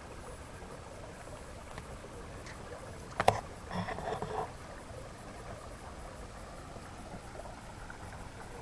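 Mountain stream flowing with a soft, steady rush. A single sharp click comes about three seconds in, followed by a brief faint sound.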